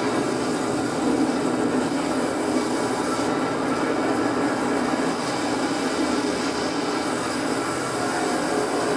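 Continuous loud rumbling noise, steady and without a clear rhythm, like a sound-effect track of destruction.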